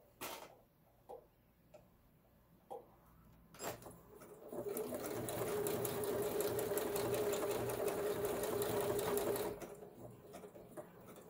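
Kenmore 385.19606 computerized sewing machine stitching a decorative lettering pattern: a few light clicks, then the machine runs steadily with rapid even needle strokes for about five seconds from about four seconds in, and stops abruptly.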